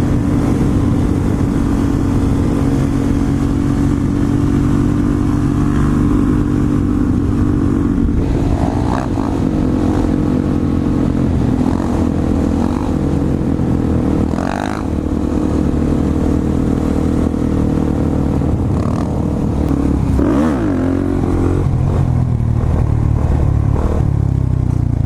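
Dirt bike engine running while riding, held mostly at steady revs, with the pitch shifting a few times as the throttle changes and one brief dip about halfway through.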